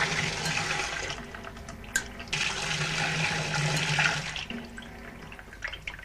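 Water rushing from a washing machine's solenoid valve through a hose into a sink, switched off and on by the machine's pressure switch as air pressure is applied to it. The flow dies away about a second in, comes back after a sharp click near two seconds with a low hum, and stops again at about four and a half seconds.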